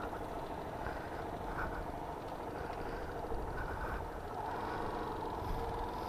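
Yamaha Fazer 250's single-cylinder engine running steadily at low speed as the motorcycle rolls along, with wind noise on the microphone.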